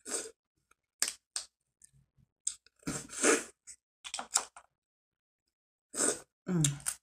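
A person eating seafood close to the microphone: wet chewing and lip smacks in scattered short bursts, with a short falling hum near the end.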